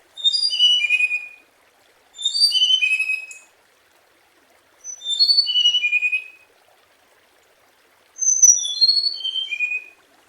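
Hồng hạnh songbird singing four short phrases, each a quick cascade of clear whistled notes stepping down in pitch, with brief pauses between phrases. This is the lure (mồi) song that keepers play to draw a response from other birds of the kind.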